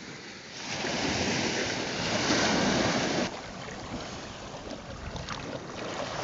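Small waves washing on the shore, with wind buffeting the microphone. The wash is louder for the first three seconds or so, then drops off suddenly to a softer wash of shallow water.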